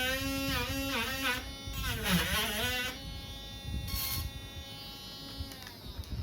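Dremel rotary tool with a sandpaper tip sanding a plastic laptop palmrest: the motor's whine dips in pitch again and again as the tip bites into the plastic. Near the end it is switched off and winds down.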